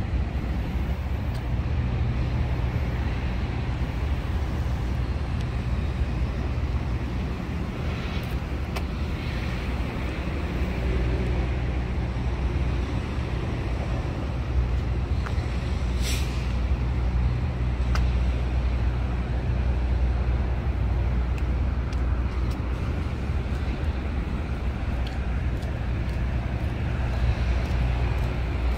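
City street traffic: a steady rumble of passing cars and other road vehicles, with a brief hiss about sixteen seconds in.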